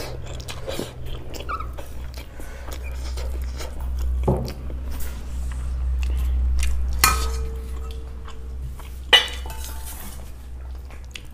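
Hand eating from a stainless steel plate: fingers mixing and scooping rice with soft scraping, chewing, and a few sharp clinks of the plate about four, seven and nine seconds in, over a steady low hum.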